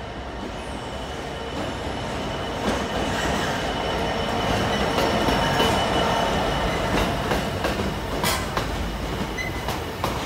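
EWS diesel freight locomotive passing close by with its engine running, loudest about halfway through, followed by a rake of box wagons rolling past with sharp wheel clicks over the rail joints in the second half.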